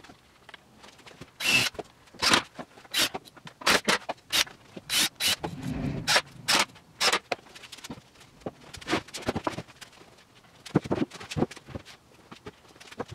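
Plywood cabinet panels being handled and fitted together on a workbench: an irregular run of sharp wooden knocks and scrapes, with a duller thump about six seconds in.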